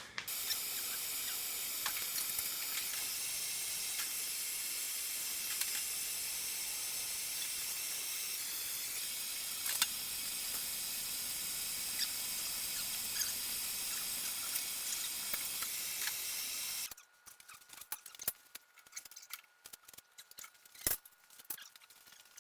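A steady hiss that stops abruptly about seventeen seconds in, followed by a few faint clicks and small handling noises.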